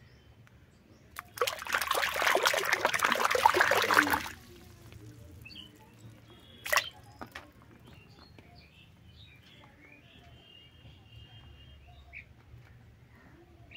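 Water splashing and trickling in a basin for about three seconds as a small plastic toy animal is swished and washed in it. A single sharp click follows a few seconds later, and birds chirp in the background.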